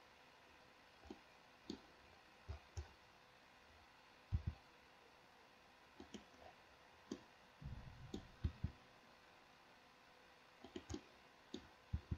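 Faint, irregular clicks of a computer mouse and keyboard, single and in quick clusters, as someone works in 3D software.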